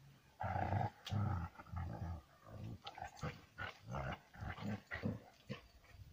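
A dog barking in a rapid run of loud barks, about two to three a second, that stops shortly before the end.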